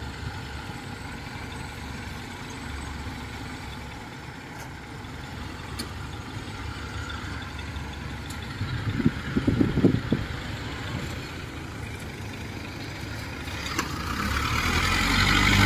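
Engines of a tracked rice-hauling carrier, loaded with rice sacks, and of combine harvesters running steadily in the field; the engine noise grows much louder near the end as the carrier drives closer.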